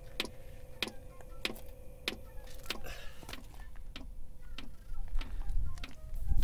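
Diesel air heater's fuel dosing pump ticking evenly, about three clicks every two seconds, as it pumps fuel through empty lines before the heater lights. A steady hum runs beneath, and a low rumble rises near the end.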